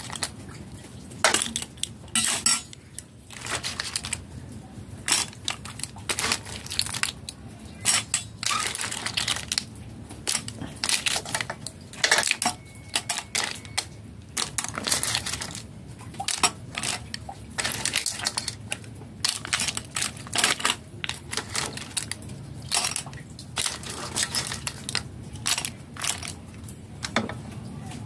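Cooked razor clam shells clattering into a stainless steel bowl as they are ladled out of a pan, with a metal ladle clinking and scraping; a run of irregular clicks and clinks.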